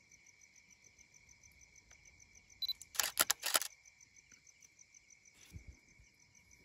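DSLR camera taking photos: a short autofocus beep, then a rapid series of about five shutter clicks a little past halfway. Crickets chirp steadily underneath.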